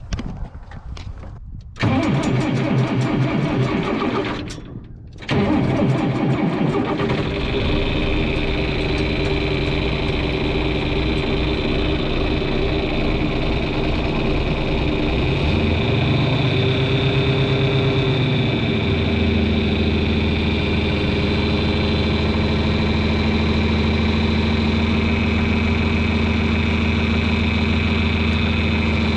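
John Deere 2940 tractor's diesel engine cranked by the starter, catching about five seconds in and settling into a steady run. Its speed is held a little higher for a few seconds past the middle, then drops to a lower, even idle.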